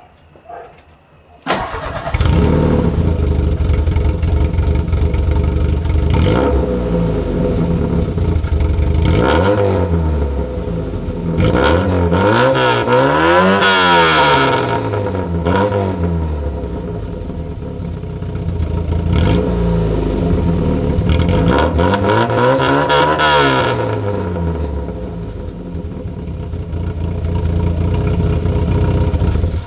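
Audi 80 engine starting suddenly about a second and a half in, then idling through its exhaust. It is revved up and back down several times, highest in the long rev near the middle, settling back to idle between revs.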